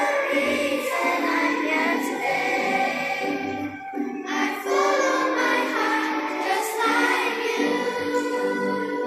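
A group of schoolchildren singing a song together, with music behind them.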